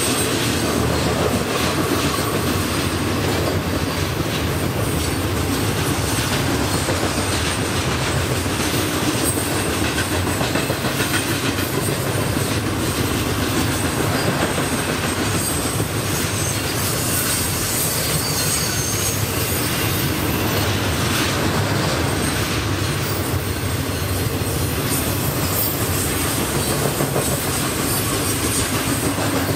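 A train's cars rolling past at close range: a continuous loud rumble of steel wheels on rail, with faint high-pitched wheel squeals now and then.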